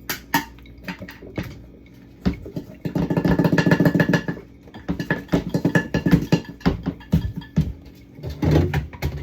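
Glass jars, bottles and plastic containers clinking, knocking and rattling as they are handled and set down, with a dense stretch of rattling a few seconds in.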